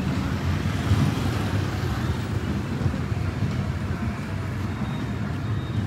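City street traffic: motor scooters running past, making a steady low rumble.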